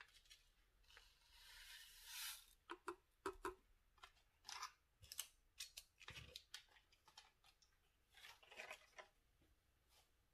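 Faint scattered clicks and light taps, with two short bursts of soft rustling, from small items such as the Maxim coffee stick wrapper and a teaspoon being handled around ceramic mugs on a wooden tray.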